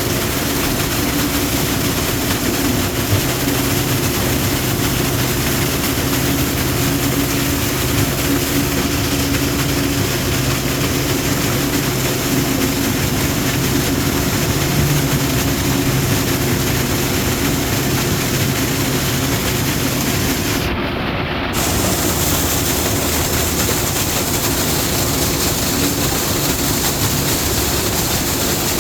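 Steady, unbroken roar of highway traffic with a low hum running under it.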